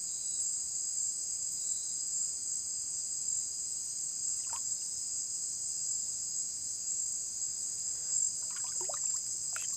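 Night insects, crickets among them, calling in a steady high-pitched chorus. A few faint, brief sounds come through about four and a half seconds in and again near the end.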